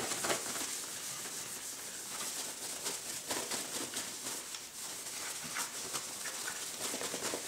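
Paper kitchen towel buffing beeswax furniture polish into a wooden shotgun stock: a steady dry rubbing made of many short back-and-forth strokes.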